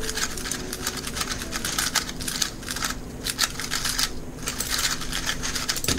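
3x3 speedcube being turned at high speed during a timed solve: a dense, rapid stream of plastic clicks from the layer turns, with a brief pause about four seconds in.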